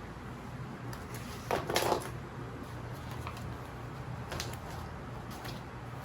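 Light clicks and clatter of small hard objects being handled, over a low steady hum. A brief, louder rustle or scrape comes about one and a half seconds in.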